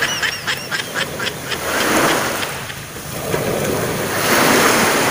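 Small waves washing in and out, a hiss that swells and fades every couple of seconds, with a quick run of short high chirps and ticks in the first second.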